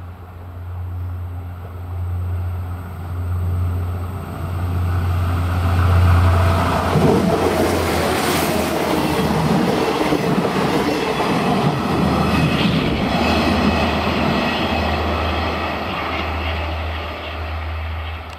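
ČD class 843 diesel railcar with its coaches passing close by. A steady low engine drone grows louder as it approaches. From about seven seconds in, loud rumbling wheel-and-rail noise sets in as the coaches go past, easing somewhat near the end.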